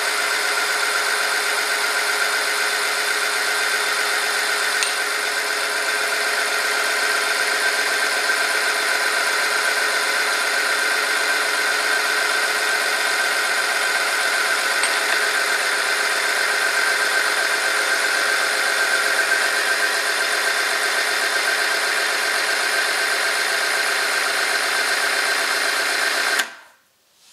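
Oil-film friction test machine running steadily: its electric motor spins a shaft against a weight-loaded test sample lubricated with engine oil heated to 100°C. It is switched off near the end and the sound cuts off abruptly.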